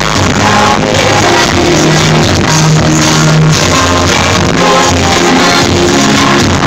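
Loud live pop music from an arena concert, heard from the audience through a camera's microphone.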